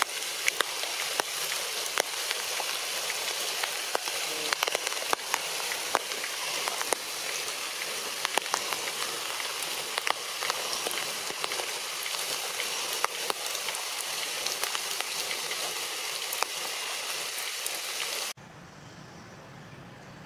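Steady crackling hiss with many scattered sharp ticks, like rain pattering; about two seconds before the end it cuts off suddenly to a much quieter background.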